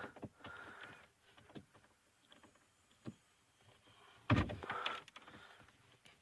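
Scattered small clicks and rattles of a key and ignition lock cylinder being turned and worked into a car's steering column, with one sharp thump about four seconds in.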